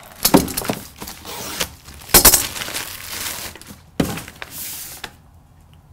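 Paper gift bag and its packaging being handled and rustled: several sharp crackling bursts, the loudest about two seconds in, with lighter rustling between.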